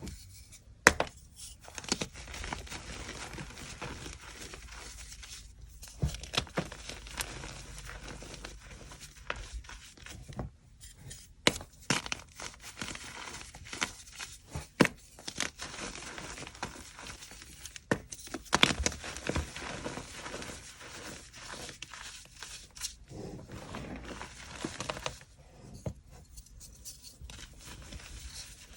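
Dry chalk crunching up close: irregular sharp snaps and cracks over a steady crumbling crackle, from crunchy reformed chalk and gym chalk blocks being broken up.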